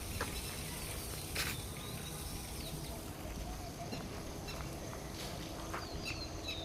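Outdoor ambience: a steady low rumble with a few faint clicks, and scattered short, high chirps of small birds that come more often near the end.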